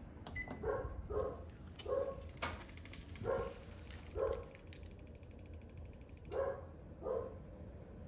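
A dog barking in short, sharp yelps, about seven times, with a short electronic beep about a third of a second in as the gas heater's ON button is pressed.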